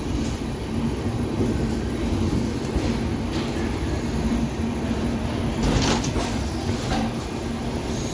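Express passenger train running on the rails: a steady low rumble with a constant hum, broken by a few sharp wheel clacks over rail joints.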